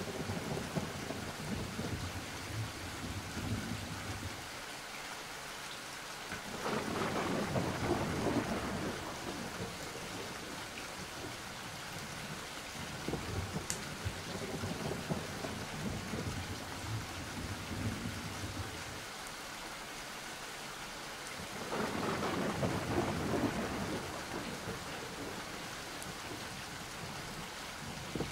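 Thunderstorm ambience: steady rain with two long rolls of thunder, about a quarter of the way in and again about three quarters through.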